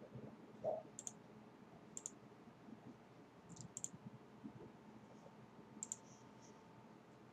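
Computer mouse clicking: four short groups of sharp clicks, several of them quick double clicks, spaced a second or two apart, over faint room hiss.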